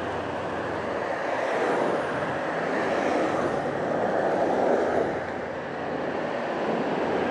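Steady rushing noise of a bicycle ride, swelling and easing every couple of seconds, typical of wind over the microphone together with tyre and traffic noise.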